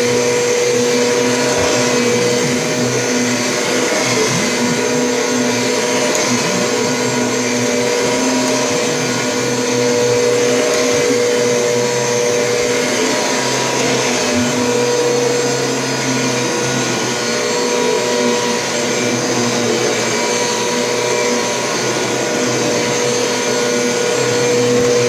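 Kirby G Series Diamond Edition vacuum cleaner running steadily with its hose attached, a constant motor hum and rush of suction that wavers slightly in pitch and level as it works over a bed.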